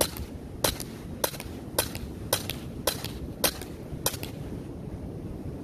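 Sig Sauer Air P320 X-Carry CO2 blowback 4.5 mm BB pistol firing eight sharp shots in steady succession, about two a second.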